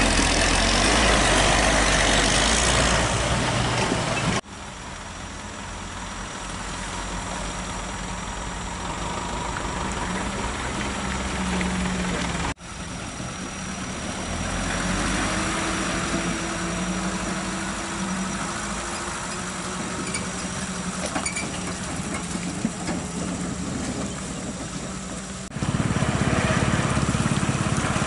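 Truck diesel engines working through deep mud, with a smaller pickup's engine running in the middle section and slowly rising in pitch. The sound changes abruptly three times.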